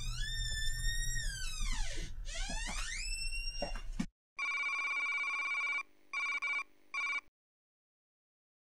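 Electronic sound effects: several sweeping tones glide up, hold, then dive down over the first four seconds. After a sudden cut, an electronic ring tone sounds once long and twice briefly, then stops dead.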